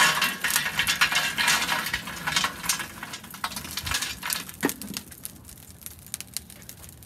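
Lit charcoal briquettes pouring out of a metal chimney starter into a steel charcoal basket, a dense clatter of rattling and clinking coals that thins out over a few seconds. One sharper metal knock comes about two-thirds of the way through.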